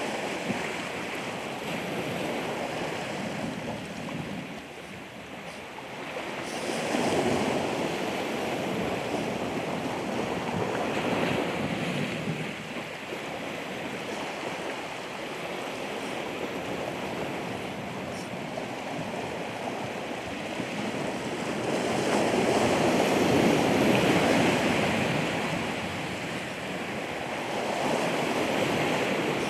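Ocean surf washing in, a steady rush of water that swells and fades as each wave comes in, loudest about three quarters of the way through.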